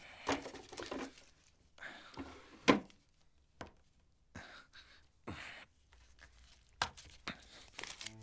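Small handling noises from rummaging in a bedside drawer and handling a plastic pill bottle: scattered clicks, rustles and light knocks, the sharpest knock about two and a half seconds in.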